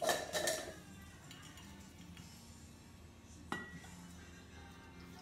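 Coffee-making utensils clinking and knocking on a wooden counter: a short clatter of clinks at the start, then a single knock about three and a half seconds in.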